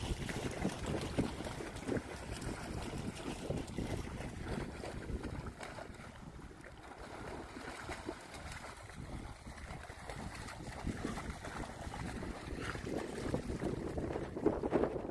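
Dogs splashing as they run and paddle through shallow lake water, a continuous irregular sloshing and splashing.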